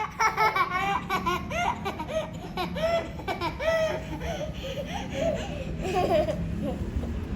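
Children laughing: a long run of high-pitched giggles and laughs.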